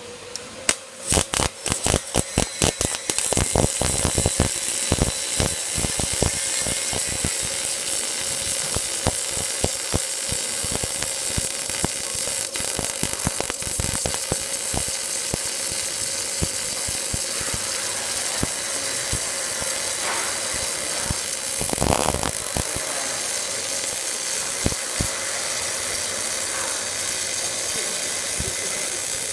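CO2/MAG welding arc running along a steel fire door's edge seam: it strikes with a string of sharp pops about a second in, then settles into a steady crackling sizzle over a constant machine hum.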